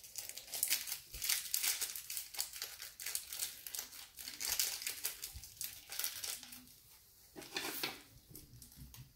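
Plastic toy packaging crinkling and rustling in irregular bursts as it is handled and worked open by hand.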